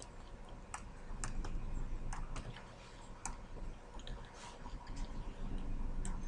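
A dozen or so light, irregularly spaced clicks of a computer mouse over a faint room hum.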